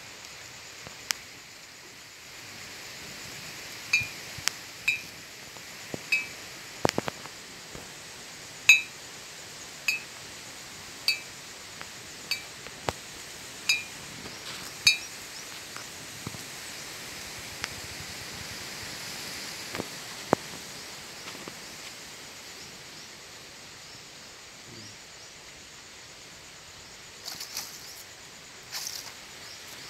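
Two empty glass beer bottles hanging side by side clink against each other, about a dozen bright ringing knocks roughly a second apart. They form a homemade hanging clapper meant to scare wild animals off a crop field.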